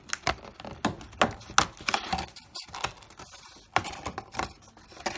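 Cardboard trading-card hobby box being pried and popped open by hand: a run of sharp, irregular clicks and snaps, a few a second.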